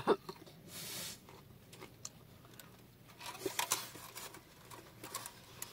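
Paper sandwich wrapper rustling and crinkling, with close-up chewing and small mouth clicks from eating a sub sandwich.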